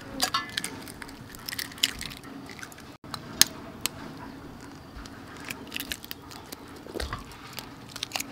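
Boiled fertilized duck eggs (balut) being cracked with a small knife and peeled by hand: irregular sharp clicks and crackles of breaking shell.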